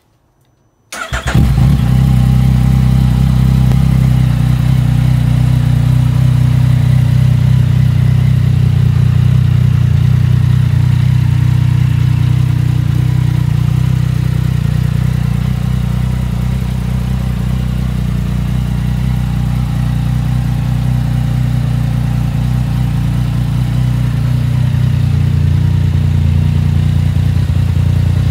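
A 2019 Yamaha XSR900's 847 cc inline three-cylinder engine starts about a second in and then idles steadily, its note shifting slightly near the end.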